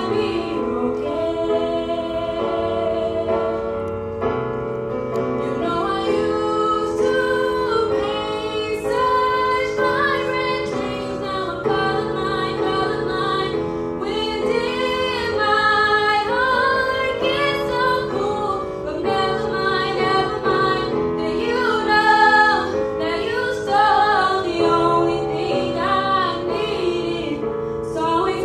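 A female vocalist singing a solo into a microphone, her voice gliding and holding long notes over a sustained musical accompaniment.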